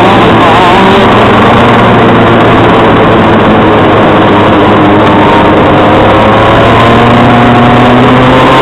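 TM KZ10C 125cc two-stroke shifter kart engine running hard under the onboard camera, loud enough to overload the microphone, its pitch wavering and slowly climbing through the corner. Other karts' two-stroke engines run close by.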